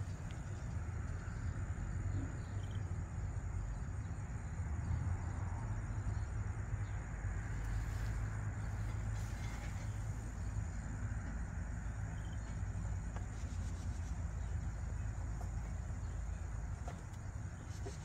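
Outdoor ambience: a steady low rumble of wind on the microphone, with a thin, steady high insect trill above it.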